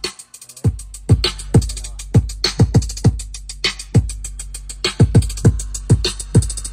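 Electronic dance music with deep kick-drum thuds that drop in pitch and ticking hi-hats, played loudly through a DB Audio 3-way speaker with a 10-inch woofer. The bass drops out for about half a second at the start, then the kick comes back in a steady beat.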